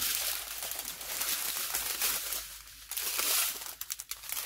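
Small plastic bags of diamond-painting drills crinkling as they are handled, with a few sharp clicks near the end.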